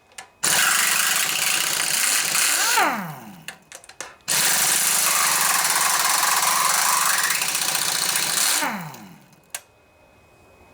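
Impact wrench hammering in two long runs, each winding down with a falling whine, with a few short trigger blips between them, as it works loose stubborn bolts on a Briggs & Stratton Intek OHV engine.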